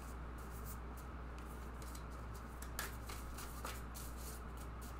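A tarot deck being shuffled by hand: a run of faint soft card flicks and slaps, a couple of them sharper just after the middle, over a low steady hum.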